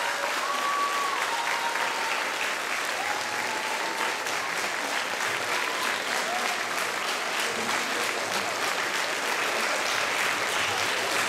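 Audience applauding: steady, dense clapping, with a few faint voices over it.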